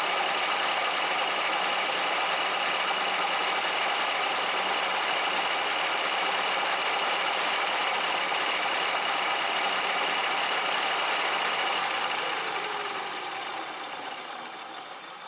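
Bridgeport milling machine cutting the welded-up steel jaws of a Lovejoy jaw-coupling hub with a damaged milling cutter that has lost a tooth, giving a steady, chattering cutting noise. About twelve seconds in, the noise fades away with a falling tone.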